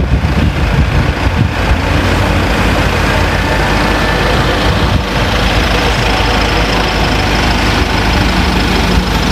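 Large vehicle engine idling steadily, a low even hum.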